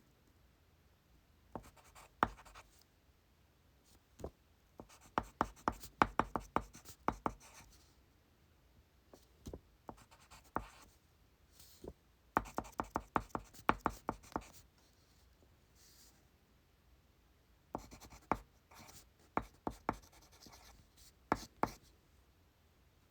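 Pencil writing on paper in irregular bursts of quick tapping strokes with short pauses between them. The busiest stretches come about five seconds in and again about twelve seconds in.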